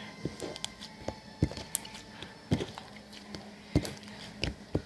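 Hands squeezing and pulling a firm, holdable slime, making small irregular clicks and sticky pops.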